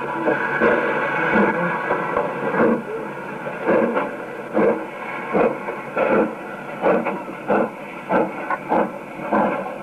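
Steam locomotive exhaust chuffing over a hiss of steam. The beats come about once a second and quicken to roughly one and a half a second as the engine gets under way. It is a thin, old recording with no bass.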